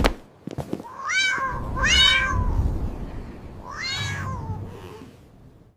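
A cat meowing three times, each meow rising then falling in pitch, the third after a short gap. A sharp click comes right at the start.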